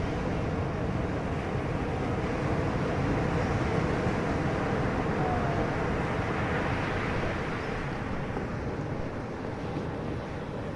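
Motorboat running steadily at sea, its engine hum under a constant rush of wind and water.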